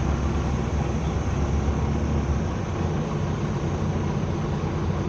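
Bus engine and road noise heard on board: a steady low rumble with a broad hiss over it. The deepest part of the rumble drops away about two and a half seconds in.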